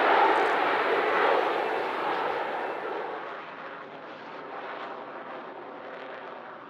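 Jet engine noise from a Mitsubishi F-2 fighter's single F110 turbofan in a display pass, a broad rushing sound that fades steadily as the jet draws away.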